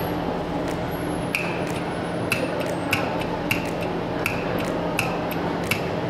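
Sharp metallic clicks from a BCH direct-on-line starter's contactor, repeating about once or twice a second from just over a second in, over a steady low hum. This is the armature working as the magnetic coil is tested.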